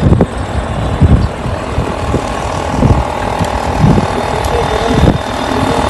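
Wind buffeting the microphone of a camera carried on a moving bicycle: a steady rushing noise with irregular low thumps.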